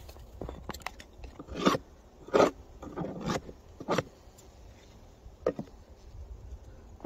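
Snow crunching and scraping in a handful of short, uneven strokes, the loudest in the first half, over a low rumble.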